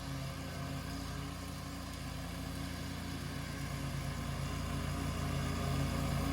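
Engine of a Scag V-Ride II stand-on commercial mower running steadily with an even drone, growing gradually louder toward the end.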